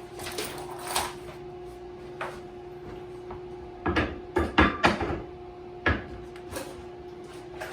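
Small hard bidet fittings and hardware being handled, with scattered clicks and then a quick cluster of sharp knocks and rattles a little past the middle, over a steady hum.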